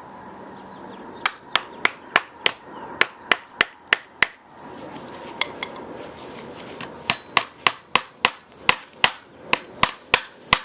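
Hammer blows driving a wedge into a wooden bending form to lock a steamed hickory stave in place: quick sharp strikes about three a second, a run of about nine, a pause of roughly three seconds, then another steady run.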